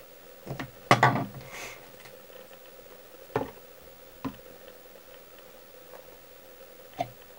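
Scattered light knocks and clicks from fly-tying materials and tools being handled at the vise, a plastic dubbing dispenser among them. The loudest comes about a second in, with single taps later.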